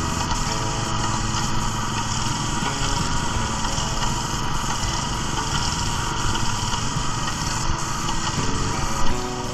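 Small gasoline engine of an airless line-striping paint sprayer running steadily while white marking paint is sprayed from a handheld spray gun, its hiss mixed with the engine.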